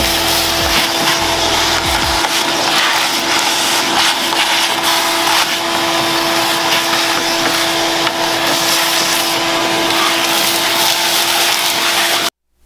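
An electric power tool's motor running steadily at one constant pitch, with a hissing noise and scattered small clicks over it. It cuts off abruptly near the end.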